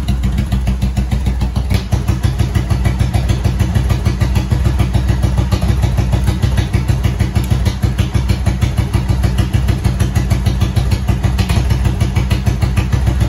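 Yamaha air-cooled V-twin cruiser engine idling steadily with an even, slightly lumpy exhaust pulse. It is running off a cordless-tool battery clipped to its battery leads in place of its own battery.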